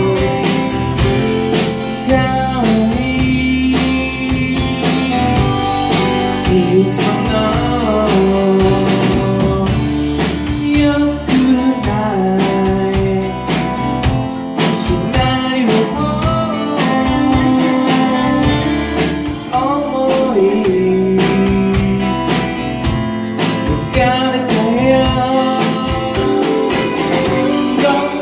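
A live band playing a song: a man sings over strummed acoustic guitar, with drums keeping a steady beat.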